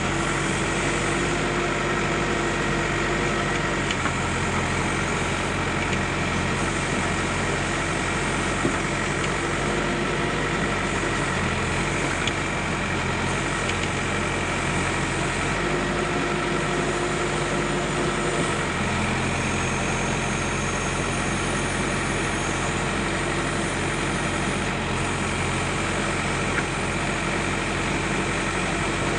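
Backhoe loader's diesel engine running steadily, its pitch shifting slightly a few times as the machine works, with a few faint knocks.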